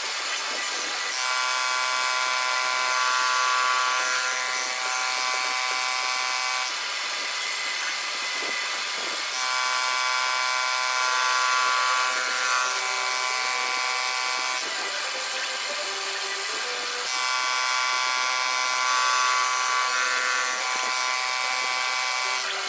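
Milling machine cutting gear teeth: a high whine from the cutter that comes in for stretches of several seconds and drops back between them.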